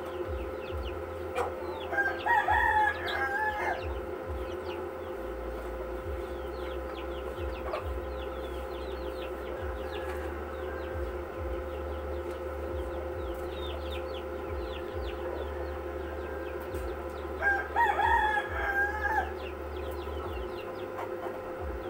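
A rooster crowing twice, each crow about two seconds long, one near the start and one about fifteen seconds later.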